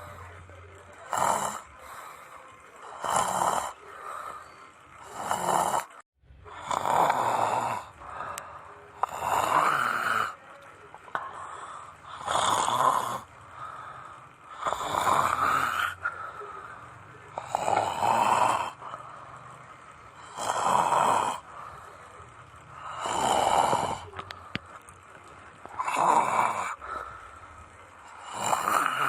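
A person snoring, one long snore about every two and a half seconds.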